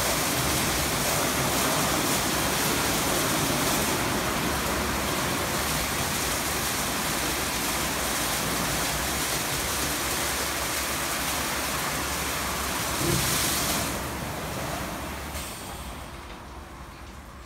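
Istobal M12 rollover car wash running its wash cycle: the spinning Carlite brushes scrub the car with a steady rushing noise. There is a brief louder knock about 13 s in, and over the last few seconds the sound dies down as the brushes move off toward the rear of the car.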